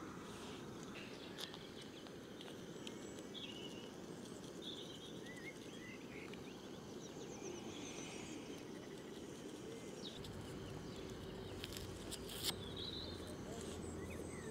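Small birds chirping in short twittering calls over a steady low hiss. A faint low hum joins about ten seconds in, and a single sharp click comes near the end.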